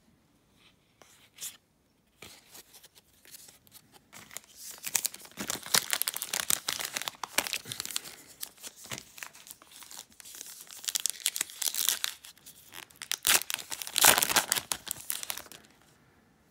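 Foil wrapper of a Panini Contenders football card pack crinkling and tearing as it is handled and opened. Faint clicks at first, then the crinkling builds from about four seconds in and stops just before the end.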